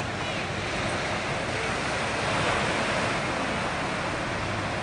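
Small waves breaking and washing up a sandy beach, a steady rush of surf that swells to its loudest about halfway through.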